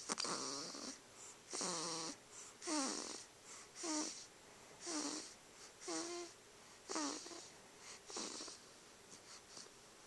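Snoring: wheezy breaths about once a second, many with a squeaky whistle that slides in pitch, dying away near the end.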